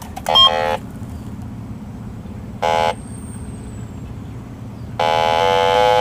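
Electronic refrigerant leak detector sounding its alarm in buzzy beeps: a short one near the start, another about halfway, and a longer one near the end that steps in pitch. The beeps signal refrigerant leaking at the air conditioner's service valve cap. A steady low hum from the running AC condensing unit lies underneath.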